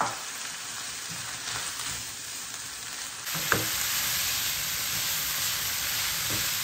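Lamb mince, onion and peppers sizzling in a frying pan while a spatula stirs them, with a few knocks against the pan. The sizzle gets louder about halfway through.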